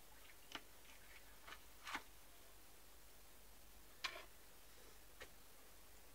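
Faint, scattered clicks and short scrapes of a filleting knife against a cutting board as it trims a fish fillet, the two strongest about two and four seconds in, over near silence.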